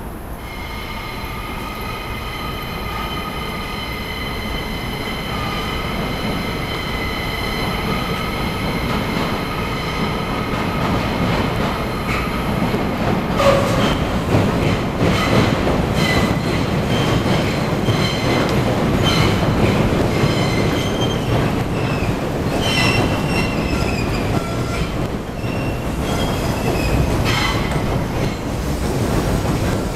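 Tobu Railway limited express Ryōmō crossing the steel Sumida River railway bridge. Steel wheels squeal in a cluster of high steady tones that grow louder, then from about halfway through there is a heavy rumble with repeated sharp clacks of the wheels over the rail joints.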